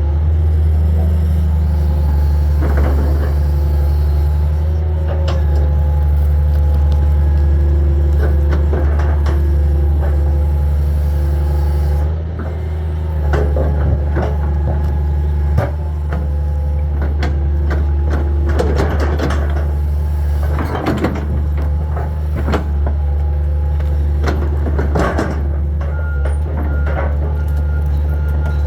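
Hitachi 225 hydraulic excavator's diesel engine running steadily at working speed, with scattered knocks and cracks as wood and debris are handled. A travel alarm starts beeping near the end, a sign that the machine is tracking.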